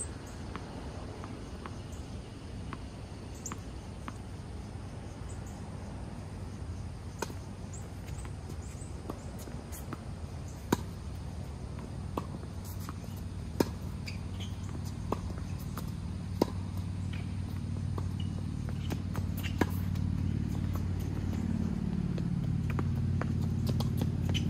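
Tennis ball struck back and forth in a rally: sharp pops about every second and a half, some louder and nearer than others. Under them a low steady rumble grows louder over the last few seconds.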